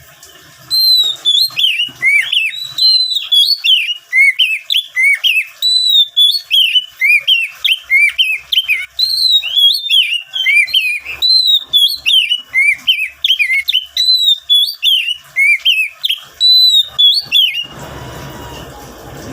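Oriental magpie-robin singing a fast, varied song of rising and falling whistled notes, starting about a second in and stopping shortly before the end.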